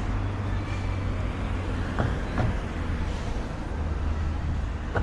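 Steady low rumble of road traffic, with a few short knocks, two of them close together about two seconds in.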